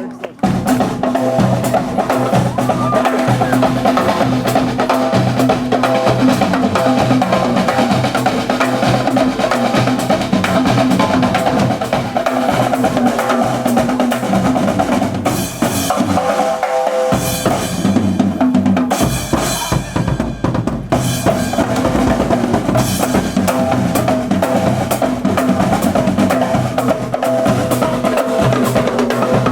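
A marching band's drum section playing a cadence: continuous fast drumming with snare and bass drums.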